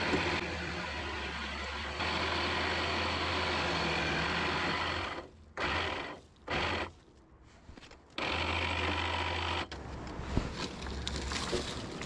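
Electric winch on a Yamaha ATV running with a steady hum as it reels in steel cable, with the cable balling up on one side of the drum. It runs for about five seconds, stops, runs in two short bursts, pauses, runs again for about a second and a half, then stops. Rustling and cable-handling noises follow.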